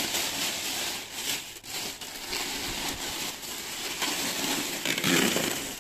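Plastic grocery bags rustling and crinkling as vegetables are handled and pulled out of them, a steady run of crackly rustling.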